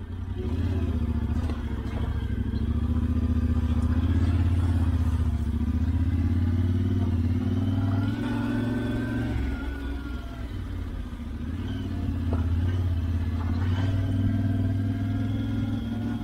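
Yamaha Ténéré 700's parallel-twin engine running at low, fairly steady revs while the bike is ridden slowly off-road, carrying a load; the revs ease off briefly about ten seconds in, then pick up again.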